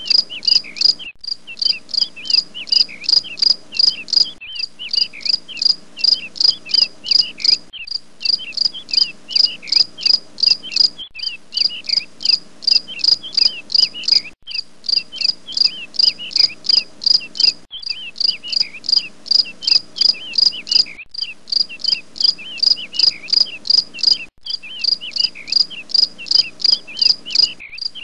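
Insects chirping, cricket-like: a steady, even rhythm of high chirps, about three a second. The chirping breaks off for a moment roughly every three seconds, as a looped recording does.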